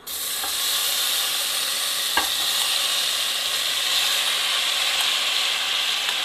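Marinated paneer cubes sizzling in hot mustard oil in a kadhai: a steady frying hiss that starts suddenly as they go in, with a click about two seconds in.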